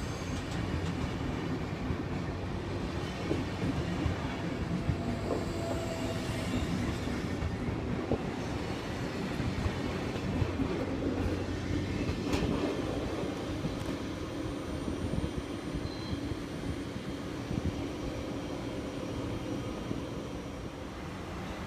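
Swiss SBB passenger coaches rolling past on the platform track, their wheels clicking over the rail joints with brief, faint squeals over a steady rumble.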